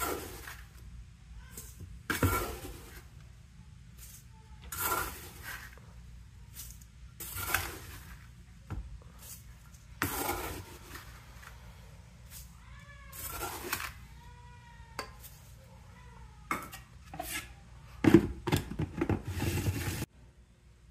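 A metal scoop digging into granulated white sugar in a plastic bucket and pouring it into a stainless steel bowl, a short gritty scrape-and-pour about every two and a half seconds, with a denser clatter near the end. A few short high cries sound faintly in the background about two thirds of the way in.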